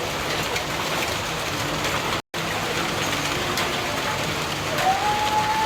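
Heavy rain pouring down steadily, cut off briefly by a moment of silence a little over two seconds in. Near the end a single steady held tone starts and carries on.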